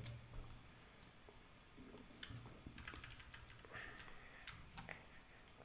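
Faint, scattered clicks of a computer keyboard and mouse, a dozen or so short taps spread irregularly.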